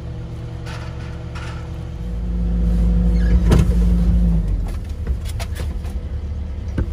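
A Cat 308 mini excavator's diesel engine runs steadily, heard from inside its cab. About two seconds in, its low drone swells louder with a steady tone for a couple of seconds and then eases back. A sharp knock sounds about halfway through, and a few light clicks come near the end.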